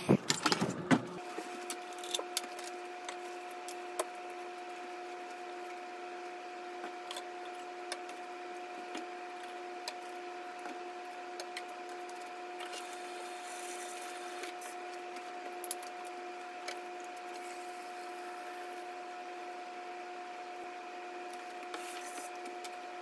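Knocks and handling clatter in the first second, then a steady hum with scattered light clicks and taps of plastic bottles being handled while a cleaning solution is mixed in a spray bottle at a kitchen sink.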